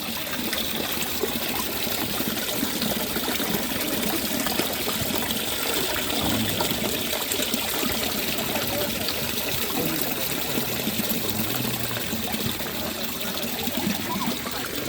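Running water flowing steadily, a continuous trickling rush.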